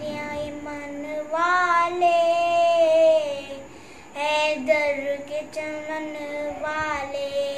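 A boy singing an Urdu devotional manqabat solo, without instruments, in long held notes; he breaks briefly for breath about halfway.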